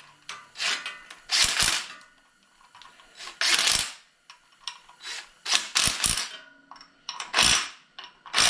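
Cordless impact driver hammering down the bolts of a newly fitted water pump on a Jeep 4.0 L inline-six. It goes in about half a dozen short rattling bursts, each a fraction of a second long, with pauses between them as it moves from bolt to bolt.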